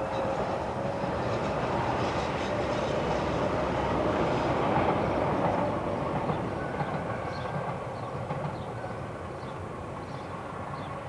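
A passing vehicle's rumble that swells over the first few seconds and then slowly fades.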